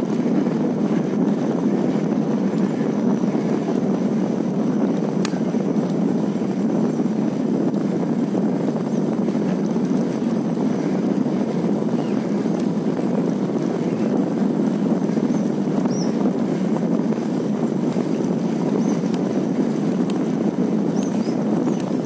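Steady rumbling travel noise while moving along a road, even in level throughout, with a few short high chirps in the second half.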